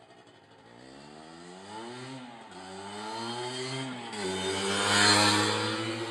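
1979 Suzuki TS125ER's single-cylinder two-stroke engine riding by under throttle. Its revs rise and fall twice, it is loudest as it passes about five seconds in, then fades as the bike rides away.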